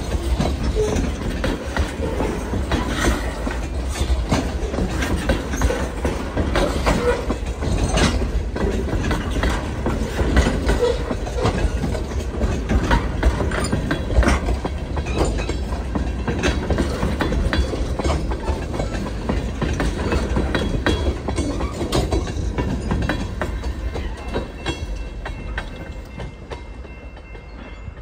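Mixed freight train rolling past, with a steady rumble of wheels and many short clicks and clacks over the rails. It fades away over the last few seconds.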